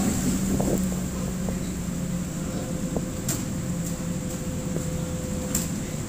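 Lada Niva's four-cylinder engine idling steadily while the car stands in a shallow river, with water flowing around it. A few light knocks sound from the car.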